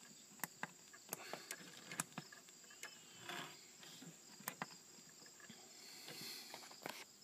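Faint, irregular clicks and ticks over a faint, steady high-pitched tone.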